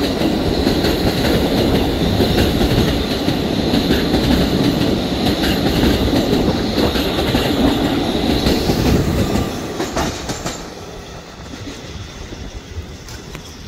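R211A subway train running on the rails: a loud rumble with clacking wheels and a high steady whine over it. The rumble and whine die down about ten seconds in, leaving a quieter noise with a few clicks.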